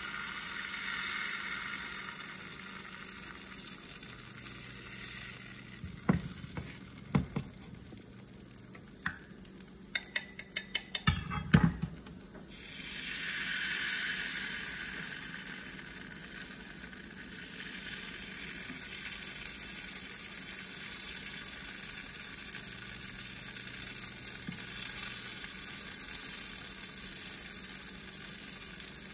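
Pancake batter sizzling in hot oil in a nonstick frying pan. Midway a run of sharp clicks and taps comes from the metal spoon knocking against the pan, and then the sizzle swells again as batter is spread.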